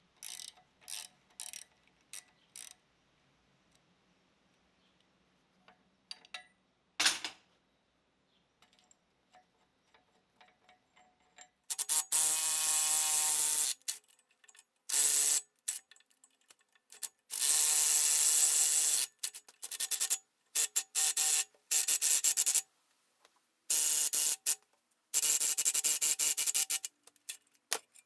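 Ratchet clicking in runs of one to two seconds at a time, turning the screw of a gear puller to draw the cast-iron flywheel pulley off a Saylor-Beall two-stage compressor pump's crankshaft. Before that come a few lighter clicks of wrenches on the pulley hub and one sharp metallic click about seven seconds in.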